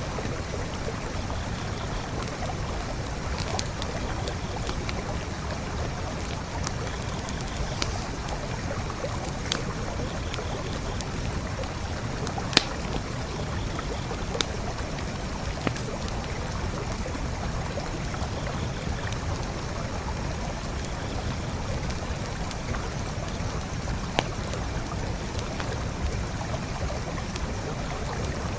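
Forest creek flowing steadily, with a campfire crackling over it in scattered sharp pops, the loudest about halfway through.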